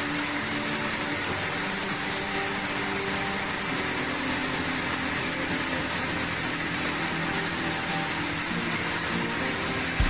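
Touchless automatic car-wash gantry spraying high-pressure water over a car: a steady, even hiss of water jets and mist.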